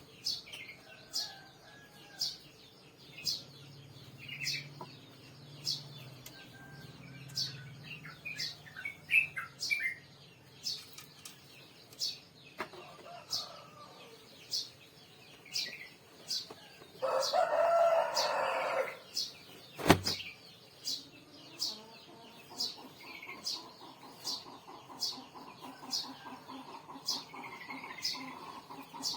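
Bird calls: a high chirp repeating steadily, a little over once a second, with a louder two-second call about 17 seconds in and a single sharp knock just after it.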